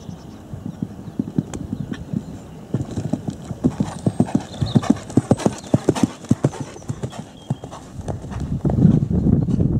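Hoofbeats of a cantering horse on a sand arena surface, a regular run of dull strikes that grows louder as the horse comes close. Near the end a louder, more continuous noise takes over.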